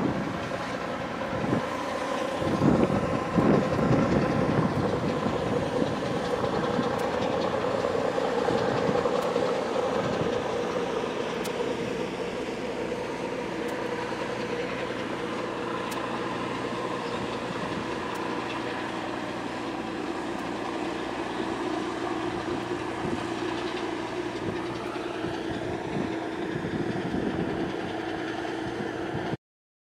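A steady engine drone with several held tones. There is low buffeting of wind on the microphone in the first few seconds.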